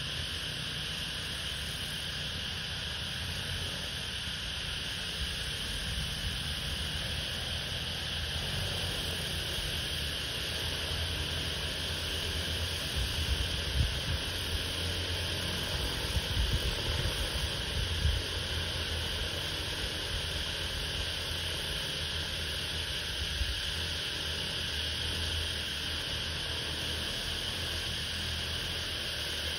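Steady hum of an agricultural spray drone's rotors as it flies and sprays over the crop at a distance. Wind buffets the microphone in gusts around the middle.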